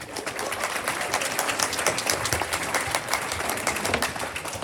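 An audience in a gym or hall applauding, many hands clapping together, swelling just after the start and fading near the end.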